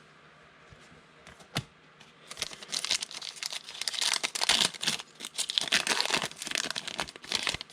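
A trading-card pack wrapper being torn open and crinkled by hand, with a single click first and then about five seconds of dense crackling.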